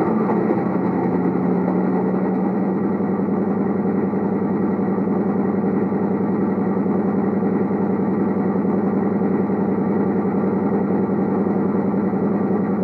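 Sound decoder in a Heljan O gauge Class 55 Deltic model locomotive playing a Legomanbiffo Deltic engine sound file through its speaker. The simulated Napier Deltic engines settle slightly down in pitch at the very start, then hold a steady idle.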